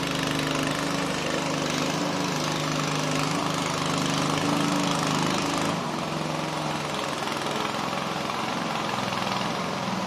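Small boat engine running steadily, its pitch wavering slightly and easing off a little about six seconds in.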